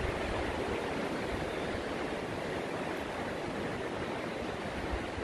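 Ocean surf breaking and washing up a sandy beach: a steady, even rush of water.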